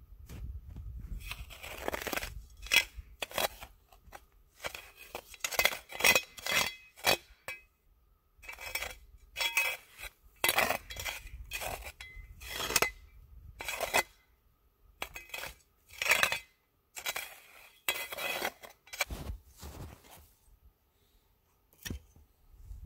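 Small metal camp shovel chopping and scooping packed snow in repeated irregular strokes, each a scraping crunch with a light metallic clink of the blade, with short pauses between bursts of digging.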